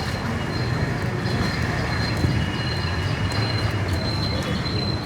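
Busy street ambience: a steady low rumble of motor traffic under a general hubbub, with a thin high-pitched tone that comes and goes.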